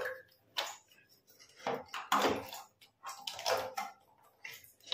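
Plastic parts of a toilet cistern's float valve being handled and taken apart: a handful of short, scattered plastic clicks and knocks, spread out with quiet between them.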